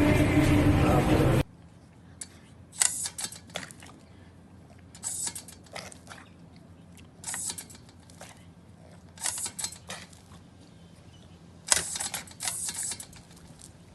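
Background music cuts off about a second and a half in. After that, clusters of short crisp clicks or crunches come in a quiet room, about every two seconds.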